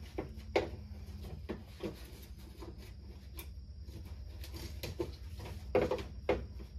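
Irregular clicks and knocks of metal parts inside a car door as the door lock actuator and its rod are worked loose by hand, with a quick run of louder clicks about six seconds in.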